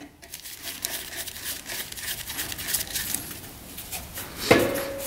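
Rubber fuel hose being worked and pulled off its fitting by hand: scattered small clicks and rustling handling noises, with one louder, briefly pitched sound about four and a half seconds in.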